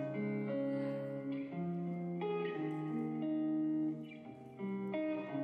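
Background music: guitar playing a slow line of held notes, one after another.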